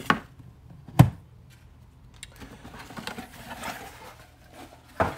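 Hands moving foam packing pads and a stack of hard plastic graded-card cases on a table: a sharp click about a second in, then faint rustling and light taps.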